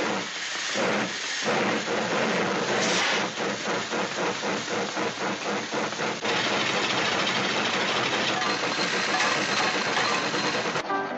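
Rhythmic chugging noise that quickens, then gives way to a steady hissing rush about six seconds in.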